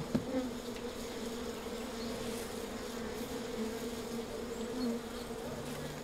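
Many honeybees of the small Omani strain buzzing around an opened wooden hive: a steady, even drone whose pitch wavers slightly.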